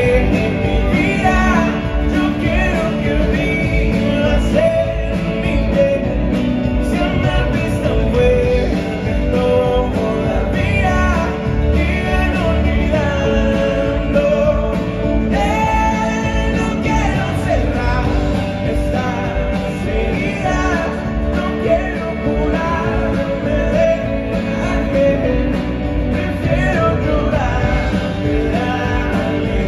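Live pop band of drums, bass, acoustic and electric guitars and keyboards playing a song, with singing over it, recorded from the audience in an arena.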